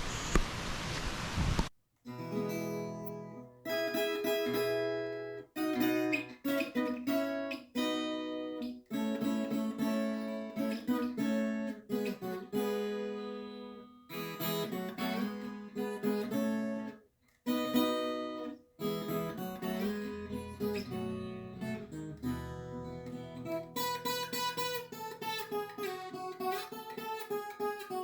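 Steady rushing water noise, cut off abruptly at about two seconds in by acoustic guitar music: plucked and strummed melody and chords, with a few short breaks between phrases.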